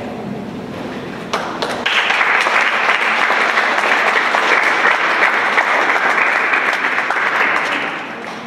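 Audience applauding: a few claps start about a second in, building into steady applause from many hands that fades out near the end.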